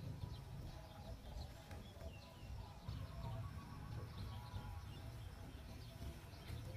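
Faint outdoor ambience: scattered small-bird chirps over a steady low rumble.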